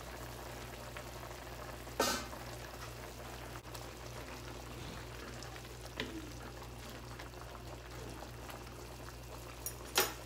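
Chicken sour soup boiling steadily in a stainless steel pan, stirred with a wooden spoon. Three sharp knocks come about two, six and ten seconds in, as the spoon hits the pan.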